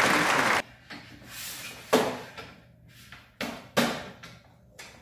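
Aluminium rip fence of a Stanley benchtop table saw slid along its rail with a steady rushing scrape that stops abruptly about half a second in, then a few sharp metallic clacks as the fence is knocked and locked into place, the loudest about two seconds in.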